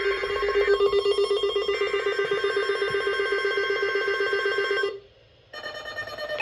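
Emergency alert tone announcing a tornado watch: a steady, rapidly pulsing ring-like tone that cuts off suddenly about five seconds in. After half a second of silence, fainter tones start again near the end.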